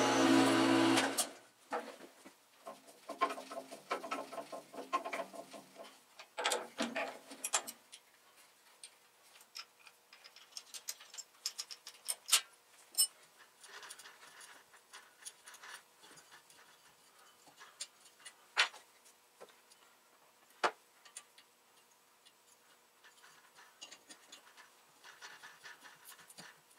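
A drill on a milling machine runs with a steady pitched whine and cuts off about a second in. Then come scattered light clicks, ticks and metal scrapes from hand-tapping a 1/4-20 thread into a tube clamped in a bench vise, turned with a T-handle tap wrench.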